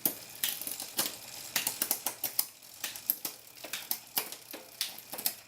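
Bicycle drivetrain clicking: the chain and Shimano rear derailleur tick and click irregularly, many times, as the gears are shifted across the rear cassette to test the shifting after a derailleur adjustment.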